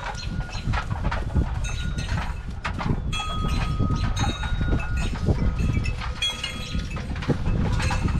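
Wind rumbling on the microphone while a paintbrush is stroked back and forth over the painted top of a wooden china cabinet. Faint, thin, steady high tones sound through the middle.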